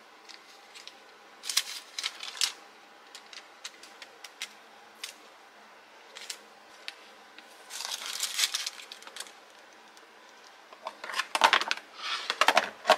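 Parchment paper rustling and crinkling as sheets are slipped between food slices on a wooden board, with light taps and clicks. Near the end comes a louder run of knocks and rustles as the slices are packed into a plastic food container.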